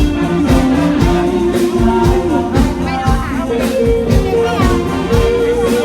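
Live band music played through the stage PA during a sound check, with a steady drum beat of about two strikes a second, held instrument notes and a singing voice.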